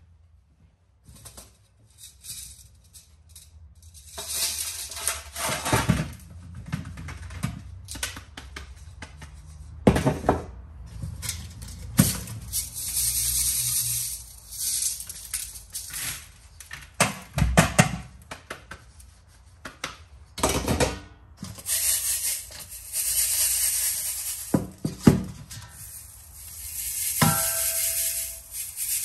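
Metal clinking and knocking, with several stretches of rough scraping or brushing hiss a second or two long, and a struck piece of metal ringing briefly near the end; music plays underneath.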